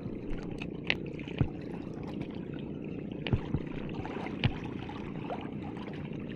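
Steady low rumble of water and outdoor background, with several sharp clicks and knocks scattered through it.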